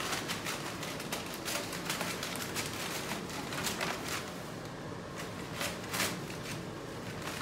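A run of irregular light clicks and rustles, several a second, over a steady background hiss.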